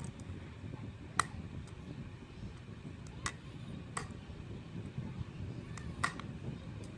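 Small sharp clicks from picks working in a Trioving euro half-cylinder lock as its pins are set: four clear clicks spread over the seconds, with fainter ticks between, over a low rustle of handling.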